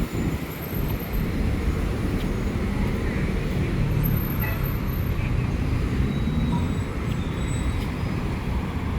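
Street traffic noise: a steady low rumble of vehicles running past.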